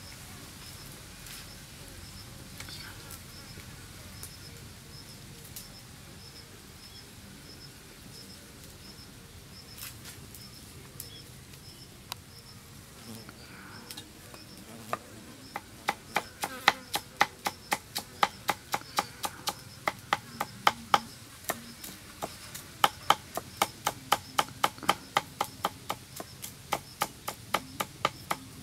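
Cleaver chopping garlic on a thick wooden chopping block: sharp knocks about four a second, starting about halfway through. Before the chopping, insects chirp steadily in a high, regular pulse.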